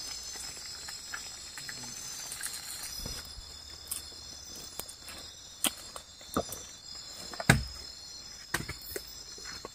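Steady, high-pitched chorus of forest insects, several shrill tones held together. Over it come a handful of sharp knocks, the loudest about seven and a half seconds in.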